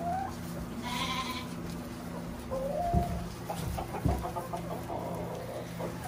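Soft, scattered calls from silkie chickens and Southdown lambs: short clucks and peeps mixed with brief bleats, over a steady low hum. Two dull knocks fall about three and four seconds in.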